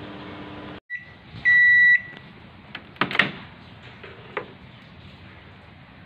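Samsung microwave oven humming as it heats, then its end-of-cycle beep: a short faint beep and then a loud half-second beep about a second and a half in, signalling the timer has run out. A clunk follows about three seconds in as the door is opened, then a lighter click a second later.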